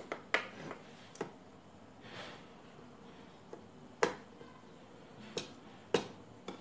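Irregular sharp clicks and light knocks of a large electrolytic capacitor being pressed and worked by hand into its mounting on an amplifier's circuit board. The loudest click comes about four seconds in, with another strong one near six seconds.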